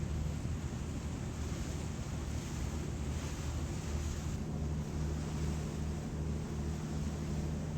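Passenger ferry's engine running with a low, pulsing drone under wind on the microphone and the rush of sea water. A steadier hum comes up a little over halfway through.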